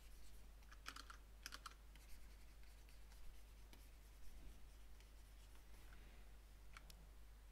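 Near silence with a few faint clicks from computer input: a couple about a second in, another about a second and a half in, and one near the end.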